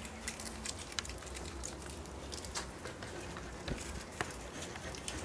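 Miniature Pinscher puppies scuffling around on a concrete floor: small irregular clicks and scrapes, several a second, over a low steady rumble.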